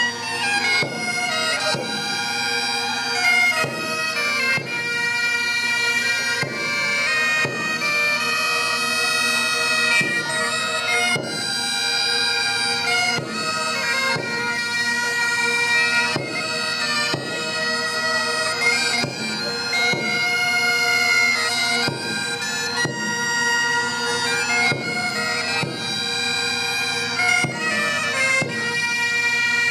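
Folk bagpipe playing a lively tune over a steady drone.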